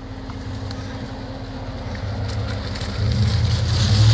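Jeep Grand Cherokee 5.9's V8 engine running off-road in mud, a steady low drone that gets clearly louder about three seconds in.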